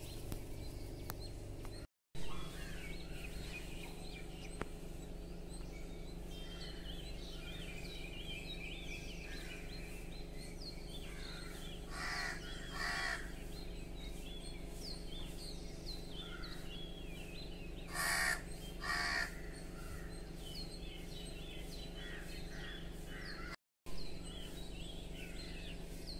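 Crows cawing: two pairs of harsh caws, one pair around the middle and another about two-thirds of the way in. Small birds chirp steadily underneath.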